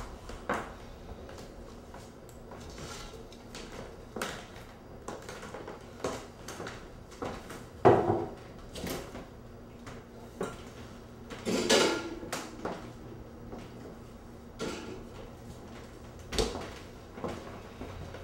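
Kitchen clatter: scattered knocks, clinks and thuds of dishes and containers being handled, with the loudest knocks about eight and twelve seconds in.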